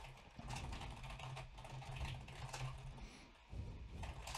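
Faint clicking of keystrokes on a computer keyboard as code is typed, irregular taps in quick runs, over a low steady hum.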